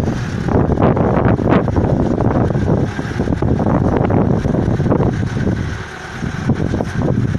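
Engine of a Nissan Terrano off-road SUV on 40-inch tyres running under load as it crawls nose-first down a steep mud mound, easing off briefly about six seconds in.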